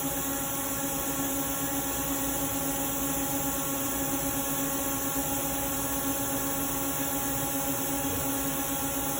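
Steady machine hum with a hiss and several constant tones.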